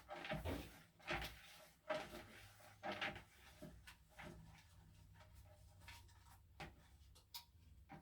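Faint scattered knocks and clicks in a small room, several in the first three seconds and sparser after, over a low steady hum.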